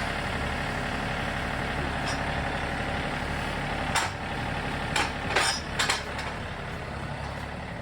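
John Deere 3025E compact tractor's diesel engine running steadily, with a few short sharp noises about four to six seconds in.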